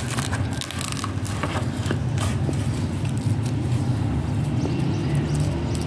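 A steady low rumble, like an engine running nearby, with scattered light crackles of crisp khamiri roti being torn by hand.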